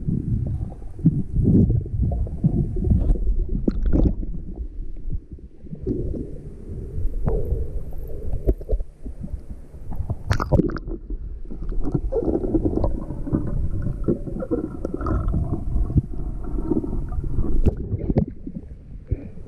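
Muffled underwater rumbling and gurgling of pond water moving around a submerged camera housing, with a few sharp knocks.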